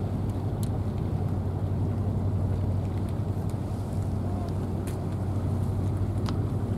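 Steady low mechanical hum of a running motor, even and unchanging, with a few faint sharp clicks.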